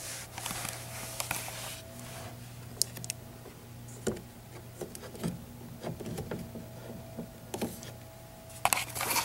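Scattered clicks, taps and rustles of hands handling low-voltage wiring and a condensate float switch at an air handler, with a short flurry of louder clicks near the end, over a steady low hum.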